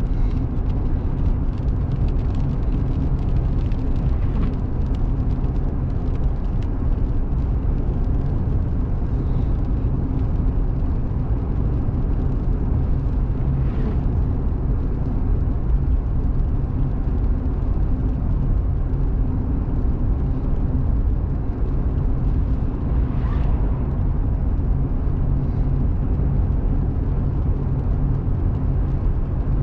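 A car driving at highway speed: a steady low rumble of engine and road noise.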